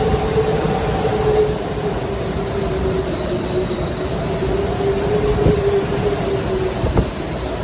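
Hurricane Elsa's winds blowing with a steady roar and a whistling tone held over it, with a couple of faint knocks in the second half.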